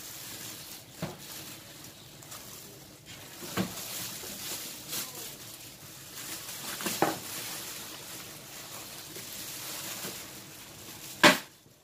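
Plastic packaging bag rustling and crinkling as it is worked off a stand mixer, with several sharp knocks, the loudest near the end.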